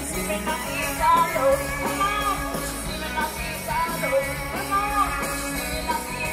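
A live band playing upbeat rock-and-roll-style music with a singer, through an outdoor sound system.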